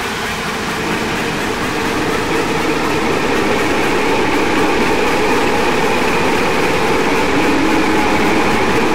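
Dense, rumbling noise drone from an electronic dark-ambient track, slowly swelling in loudness.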